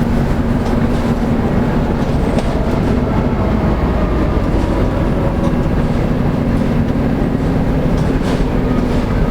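Interior of a Volvo B7TL double-decker bus on the move: its 7-litre six-cylinder diesel and road noise give a steady rumble with a held drone, and a few light ticks and rattles come through now and then.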